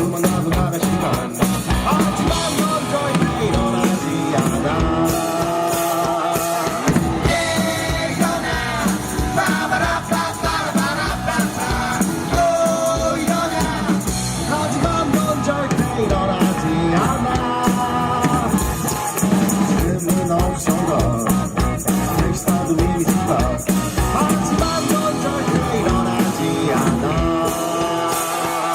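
Rock band playing live, with drum kit and a sung lead vocal over the full band; the singing comes in about a quarter of the way through.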